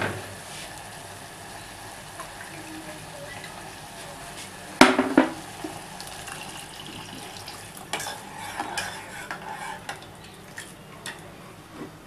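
Tomato-vegetable sauce frying steadily in a saucepan, with one loud sharp clatter of kitchenware against the pan about five seconds in. Water is poured into the sauce from a glass, and a few smaller knocks and scrapes of utensils follow.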